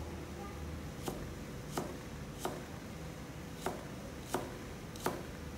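Cleaver chopping the white part of a spring onion into thick pieces on a plastic cutting board: six sharp knocks of the blade striking the board, at a slow, even pace.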